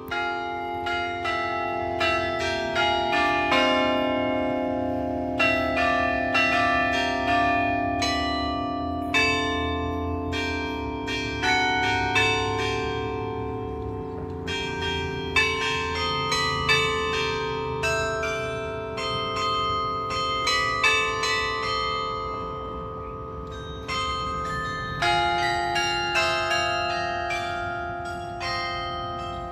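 Tuned carillon bells of a glockenspiel clock tower playing a melody: struck bell notes several a second, each ringing on and overlapping the next. The strikes thin out briefly about three-quarters of the way through.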